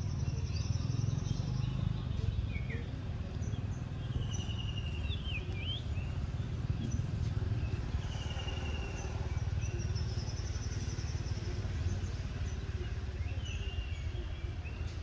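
Outdoor ambience: short, high trilled bird calls every few seconds over a steady low rumble.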